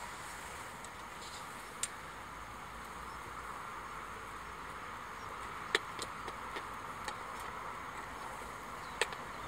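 Pine cones burning in a small wood stove: a steady hiss with sharp crackles and pops, a cluster of them about six to seven seconds in.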